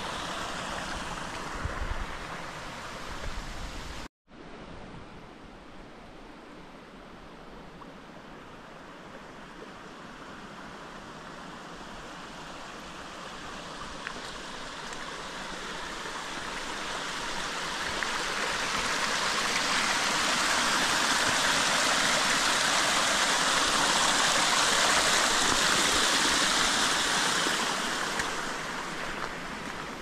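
Rushing stream water, a steady hiss that swells to a peak over several seconds and eases off near the end. A brief silent cut about four seconds in.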